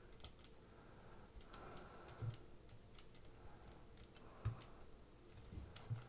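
Pushbuttons on a 1986–89 Corvette C68 electronic climate control panel pressed one at a time during a function test: a few faint clicks a second or two apart.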